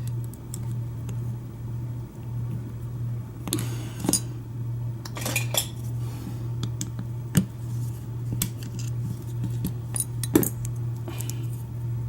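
Small metal clicks and clinks of an old Kwikset pin-tumbler lock cylinder being taken apart by hand, as the plug and its pins and springs are gutted out of it. The clinks come irregularly, a few sharper taps among them, over a steady low hum.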